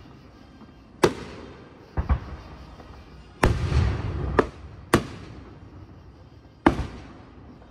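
Aerial fireworks shells bursting: about seven sharp bangs, each trailing off in an echoing tail. Two come in quick succession about two seconds in, and another about three and a half seconds in is followed by a longer low rumble.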